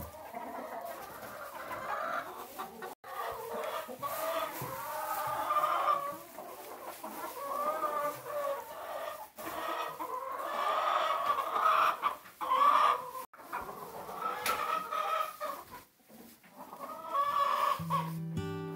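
Domestic chickens clucking, several hens calling over one another, with a few brief breaks in the sound.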